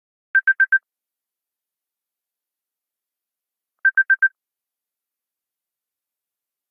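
iPhone ringtone of electronic beeps on one steady pitch: two quick bursts of four beeps each, about three and a half seconds apart.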